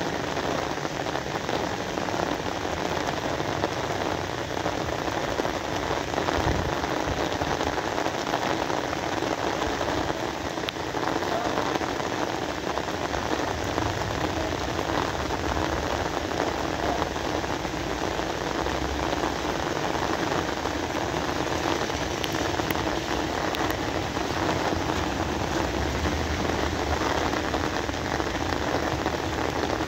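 Steady, even rainfall, a continuous hiss of falling drops.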